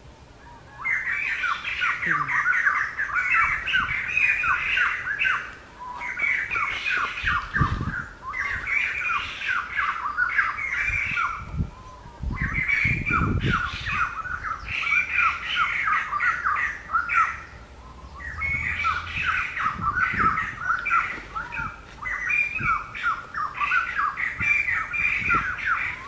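Parakeet calling: a fast run of short, harsh squawks, several a second, in long bouts broken by brief pauses.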